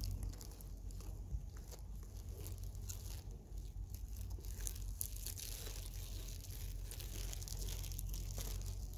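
Dry grass and leaves crackling and rustling close to the microphone: scattered small crackles over a steady low rumble.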